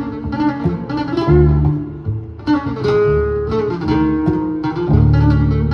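Live acoustic guitar and upright double bass playing together: a run of plucked guitar notes in a flamenco-like style over long, low bass notes.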